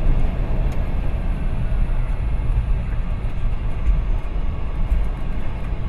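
Steady low rumble inside the cockpit of a KC-10 Extender tanker as it rolls along the runway after landing: the wheels and airframe rumble over the runway with the jet engines running underneath.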